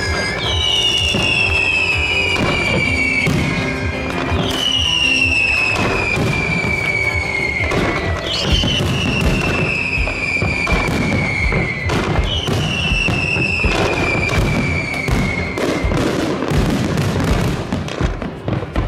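Fireworks display: a dense run of bangs and crackles, with music playing alongside. A high, falling whistle-like tone starts again about every four seconds.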